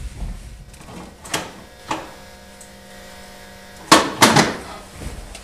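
Metal lid of a solar grill prototype being handled: two sharp knocks about four seconds in, the loudest sounds here, after a few lighter knocks. A steady hum runs for about two seconds before them.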